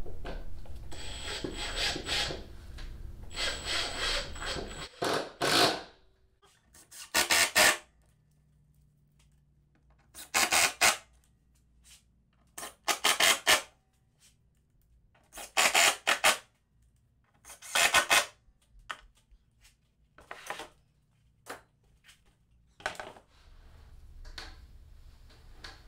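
Large plywood sheets scraping as they are shifted and flipped over, then a cordless drill-driver run in about eight short bursts, one every two to three seconds, driving screws into the glued plywood transom.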